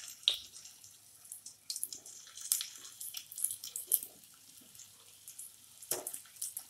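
Hot oil in a frying pan sizzling and crackling in irregular pops as stuffed bitter gourds are laid into it one at a time, with a knock about six seconds in as one is set down.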